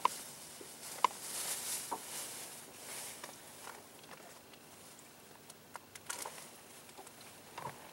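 Lake water lapping against a small boat's hull: soft, irregular splashes and clicks over a faint hiss.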